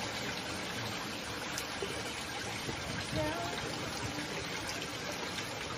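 Steady hiss of running water trickling into the canal, even and unbroken, with a faint voice briefly about three seconds in.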